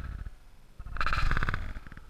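A puppy's odd vocalization played back in slow motion: a low, rapidly pulsing cry that starts about a second in and lasts about half a second, after a fainter tail of the previous call.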